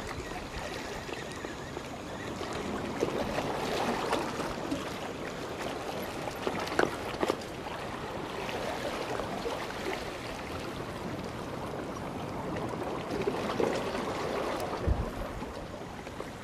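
Small waves lapping and sloshing against a rocky shore, a steady watery wash that swells now and then, with a couple of sharp clicks about seven seconds in.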